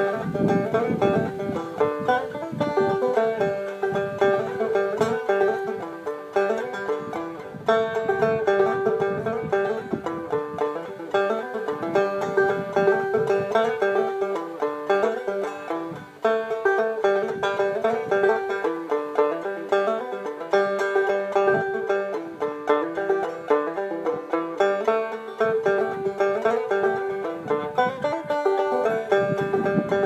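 Five-string banjo played clawhammer style: a steady, rhythmic stream of plucked notes in an old-time tune, with one short dip in loudness about halfway through.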